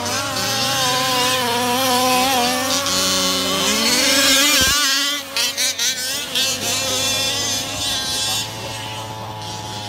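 Two-stroke petrol engines of several 1/5-scale RC cars running together, each revving up and down in its own pitch. A single sharp knock sounds about halfway through.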